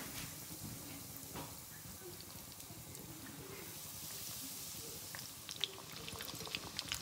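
Breadcrumb-coated bread-and-potato patties sizzling as they deep-fry in hot oil: a steady hiss with scattered crackles and pops. A second patty goes into the oil partway through, and the popping grows busier after it.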